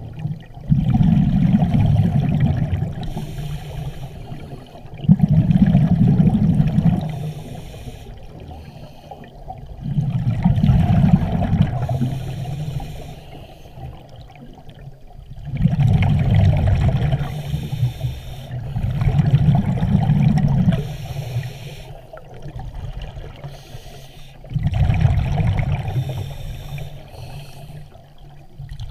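Scuba regulator breathing underwater: six bursts of bubbling exhalation, about one every four to five seconds, with a quieter watery hiss between breaths.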